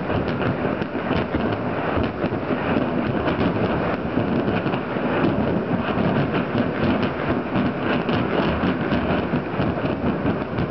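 Continuous rumbling din from a burning ammunition and gunpowder depot, dense with rapid crackles and pops as munitions go off.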